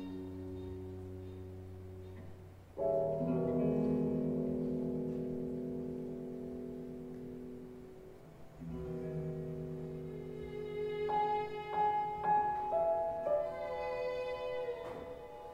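Improvised live music of held, sustained chords that swell in about three seconds in and again near nine seconds, followed by a run of shorter, separate higher notes from about eleven seconds.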